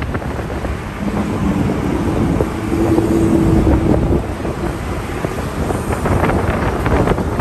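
Wind buffeting the microphone of a moving motorbike, over road and engine rumble from the motorbike and surrounding traffic. About a second in, an engine tone rises in pitch and holds until about four seconds in.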